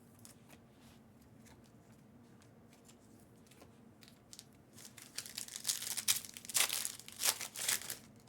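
Foil wrapper of a trading-card pack crinkling and tearing open, starting about five seconds in as a burst of crisp crackling that lasts about three seconds.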